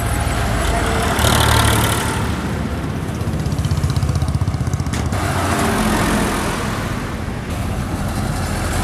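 Diesel farm tractors pulling loaded trailers drive past one after another, their engines running with a steady low hum and tyre noise on the road. The sound swells as one tractor passes about a second in and another about five seconds in.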